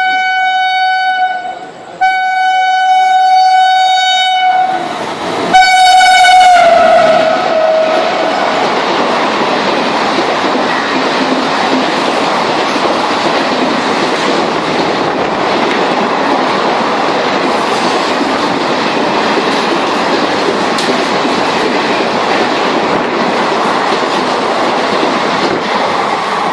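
Indian Railways train horn sounding three long blasts, the last one dropping in pitch. The train then passes with a steady loud rush and clickety-clack of wheels on rails.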